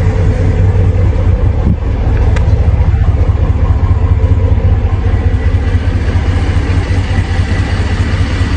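A snow-plowing vehicle's engine running steadily with a deep rumble.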